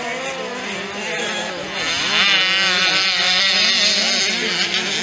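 Several motocross dirt bike engines revving hard as the bikes race by, pitch climbing and dropping with each throttle change and gear shift. There is a sweeping rise about two seconds in, after which it is louder.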